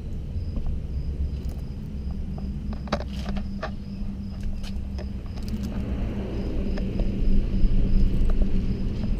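Low rumble and scattered clicks and rattles from a bicycle being wheeled and mounted, heard through a camera fixed to its handlebars, over a steady low hum and a faint, evenly pulsing high chirp.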